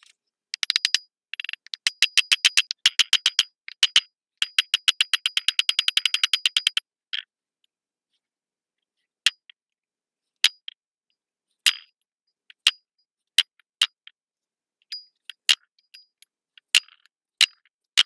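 Mallet blows driving a new wheel bearing race into a truck's front hub-and-rotor. First comes a quick run of taps, about six a second, through a wooden block. After a pause, slower single blows follow about a second apart, each with a brief metallic ring.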